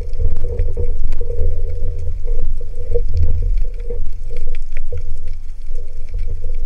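Underwater sound picked up by an action camera in its waterproof housing: a heavy low rumble of water moving around the housing, a wavering hum and scattered faint clicks and crackles.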